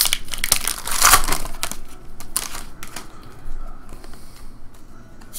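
Trading cards being slid and flicked one by one through a hand-held stack: a run of quick clicks and scrapes of card against card, busier and louder in the first three seconds, then sparser.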